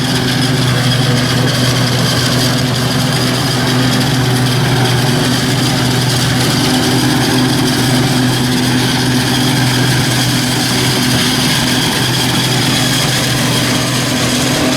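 A vehicle engine running steadily at idle, an even hum of constant pitch that edges slightly higher near the end.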